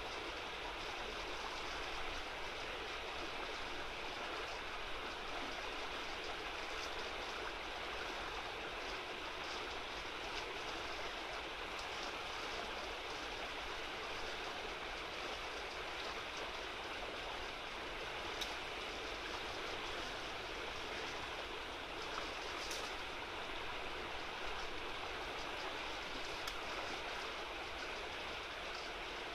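Small river running fast over a shallow, stony stretch: a steady rush of flowing water, with a couple of faint brief ticks partway through.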